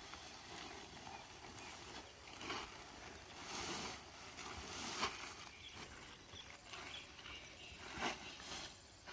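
Faint rustling and crackling of a large woven plastic mat and a tarpaulin being unfolded and spread out, with several soft swells of louder rustling as the mat is lifted and laid flat.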